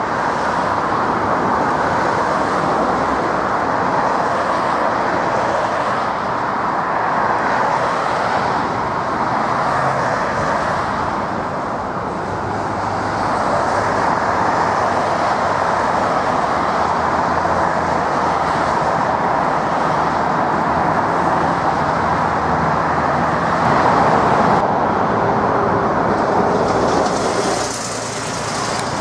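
British Airways Airbus A380 climbing out after takeoff, its four Rolls-Royce Trent 900 engines making a steady jet roar that swells and eases slowly. The sound dips briefly near the end.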